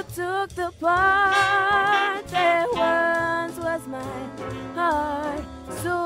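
A young female singer sings a slow song, holding notes with vibrato in short phrases over instrumental accompaniment.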